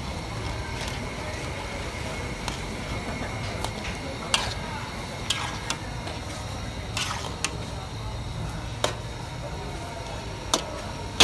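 A metal spatula stirring chunks of lamb in a large steel karahi, over a steady cooking and background noise. From about four seconds in, the spatula strikes the pan wall now and then with sharp clinks.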